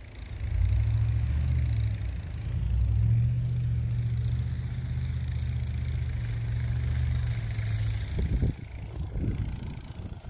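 A motor vehicle's engine, a low steady rumble that swells about half a second in and falls away about eight seconds in, with a faint hiss over it in the middle.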